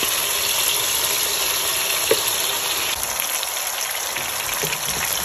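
Marinated chicken pieces sizzling as they go into hot oil with softened tomatoes in a frying pan: a steady hiss that eases slightly about three seconds in.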